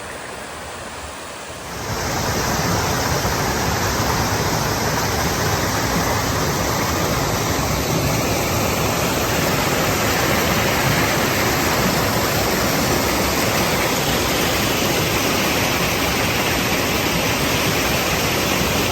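Small rocky waterfall at low flow, water rushing and splashing steadily, louder from about two seconds in.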